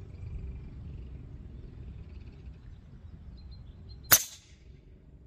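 A single shot from a Gauntlet .30 PCP air rifle firing a slug: one sharp report about four seconds in, with a short ring-off.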